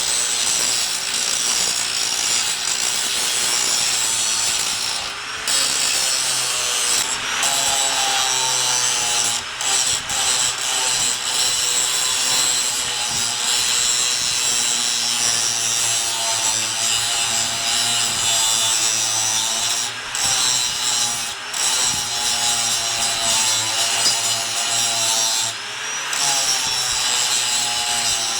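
Power grinder grinding down welds on steel boxing plates, a steady harsh hiss over a motor tone that sags and recovers in pitch as it bears on the metal, with a few brief breaks where it lifts off.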